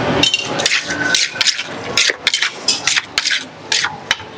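Metal spoon scraping and knocking against the inside of a clay som tam mortar as the chillies and dressing are stirred: an irregular run of sharp scrapes and clinks, about a dozen in four seconds.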